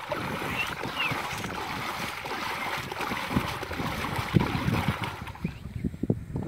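Shallow muddy water splashing and sloshing as hands churn and grope through it for fish, with irregular slaps and swishes; the splashing dies down near the end.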